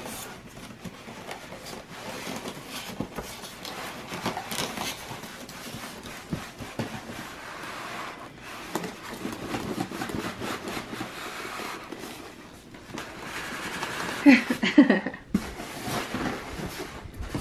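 Styrofoam packing blocks rubbing and scraping against a cardboard box as they are worked loose and lifted out, with a few louder sounds near the end.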